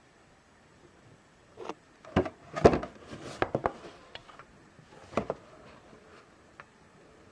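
A cardboard figure box with a clear plastic window being handled. A cluster of knocks, clicks and scraping starts about two seconds in, and another knock follows about five seconds in.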